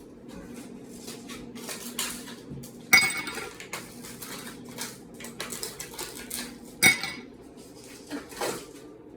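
Cutlery clinking and scraping against a plate or dish, with two sharp, ringing clinks standing out, the first about a third of the way in and the second later on.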